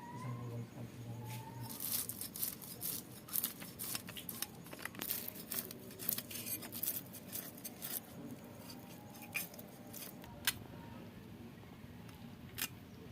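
A quick, irregular series of sharp clicks and scrapes, thickest in the middle and thinning out near the end, with a couple of short rising chirps near the start.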